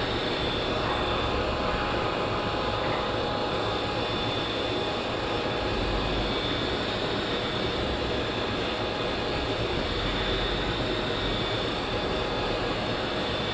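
Steady industrial background noise of machinery or ventilation running, with a faint high-pitched whine over it.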